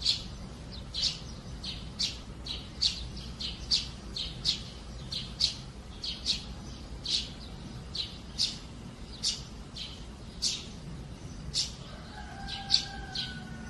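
Sparrows chirping: short, high chirps repeated irregularly, about two a second, over a low steady background noise.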